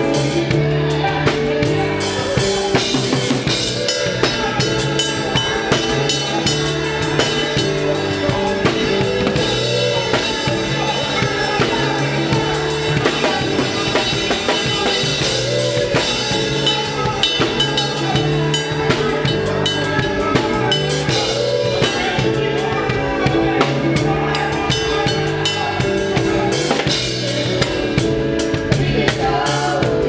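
A full band playing, with a drum kit loudest: snare, kick drum and Zildjian cymbals hit in a steady groove over sustained pitched notes from the rest of the band.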